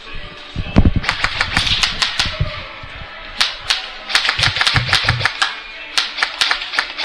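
Airsoft guns firing in quick runs of sharp snapping shots, several a second, starting about a second in and coming again in denser strings through the second half.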